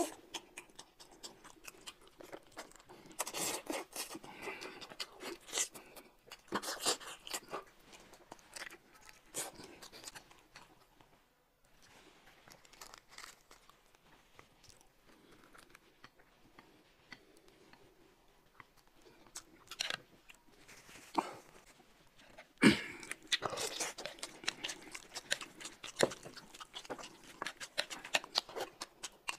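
Crunching and tearing of crisp lettuce leaves, with chewing, in bursts with quieter stretches between. One sharp click comes about 23 seconds in.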